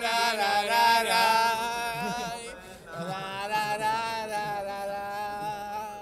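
Chant-like singing in long held notes with no beat, the pitch sliding now and then, in two long phrases with a short dip near the middle.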